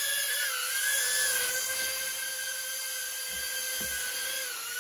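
Eachine E008 mini quadcopter hovering: its tiny motors and propellers give a steady high whine that wavers slightly in pitch.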